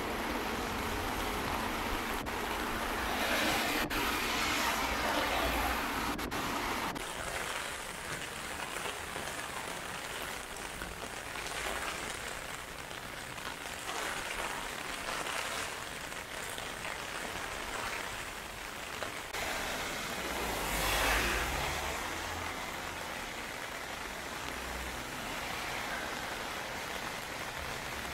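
Heavy rain falling steadily on pavement, with cars hissing past on the wet road twice, the louder pass bringing a low rumble.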